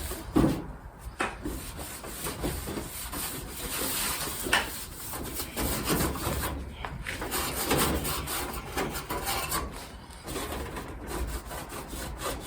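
Hand scrubbing and rubbing on a kerosene heater's cover to clean off dirt: irregular scraping strokes, some harder than others.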